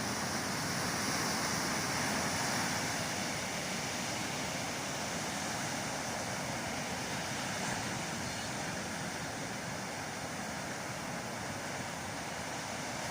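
Ocean surf breaking and washing ashore, a steady rush that swells a little in the first few seconds.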